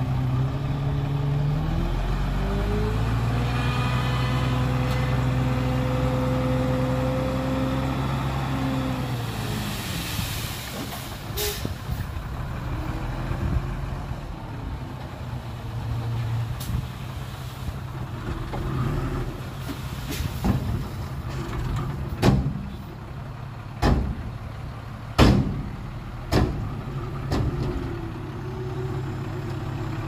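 Heavy diesel engine of earthmoving machinery revving up and held at high revs under load for several seconds, then dropping back, with a brief hiss after. Several sharp knocks follow over the lower engine sound.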